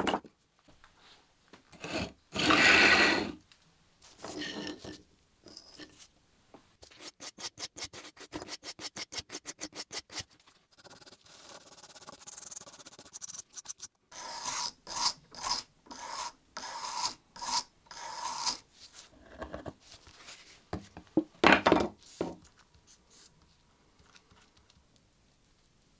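A hand tool working a small piece of wood in a series of strokes: a quick, even run of about three to four strokes a second, then a slower run of about two strokes a second, with a few single loud scrapes between.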